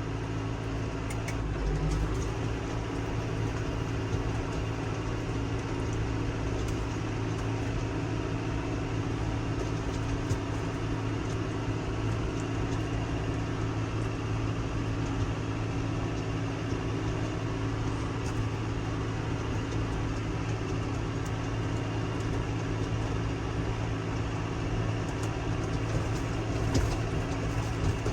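Massey Ferguson 5S.145 tractor engine running steadily under road travel, heard from inside the cab, with a few faint clicks over the hum.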